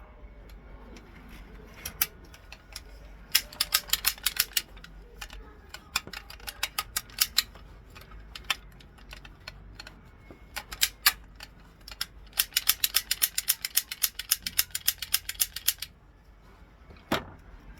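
Toy cap gun's trigger and hammer being worked: sharp mechanical clicks, a few single ones, then two fast runs of about eight clicks a second, one lasting about a second and a longer one of about three and a half seconds.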